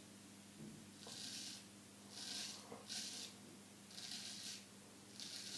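Straight razor (Solingen H. Geffgen 6/8) scraping through lathered stubble in about five short strokes, each a brief raspy scratch, over a steady low hum.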